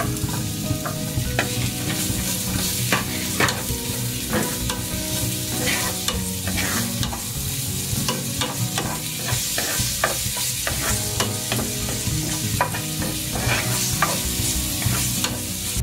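Chopped onion and garlic sizzling in melted margarine in a frying pan while being stirred, with a spatula clicking and scraping against the pan many times.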